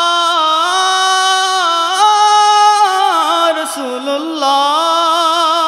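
Male voices singing a wordless a cappella passage of a Bengali naat: a steady low held note under a higher melodic line that holds and glides between notes.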